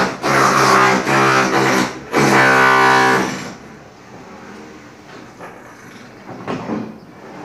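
Electric guitar music with loud held notes, which stops about three and a half seconds in. After that there is a low background with one brief sound near the end.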